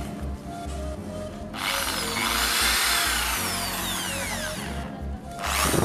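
Electric jigsaw cutting a round speaker ring out of a wooden board. It runs quieter for the first second and a half, cuts loudly from there, and stops shortly before the end.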